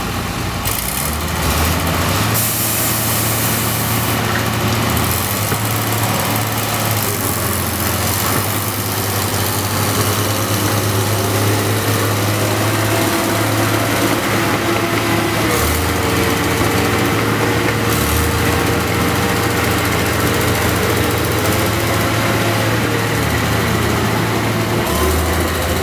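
Farm machinery engine running steadily, with a fainter tone that wavers up and down in pitch in the second half.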